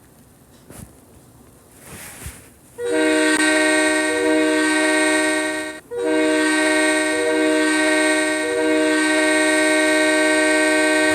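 Freight train horn sounding a multi-note chord in two blasts: about three seconds in it sounds for about three seconds, breaks off briefly, then sounds again and holds.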